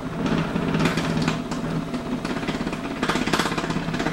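Vibro Balance Blaze Fitness oscillating vibration plate running fast, its motor giving a steady hum with a rapid, even rattle. A few sharper knocks stand out, about a second in and again near three seconds.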